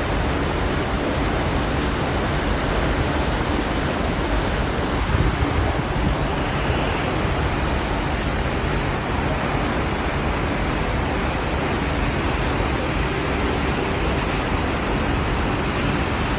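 Steady rushing wind and water noise, with wind buffeting the microphone.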